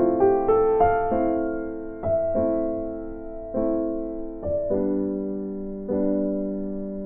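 Background music on piano-like keyboard: a few quick notes stepping upward in the first second, then slow chords struck every second or so, each ringing and fading away.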